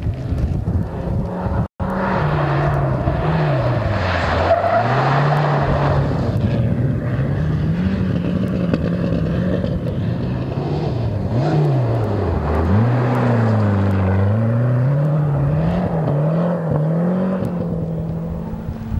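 Mitsubishi Starion rally car driven hard on loose sandy gravel, its engine revving up and dropping back again and again through gear changes and throttle lifts. The sound cuts out for an instant about two seconds in.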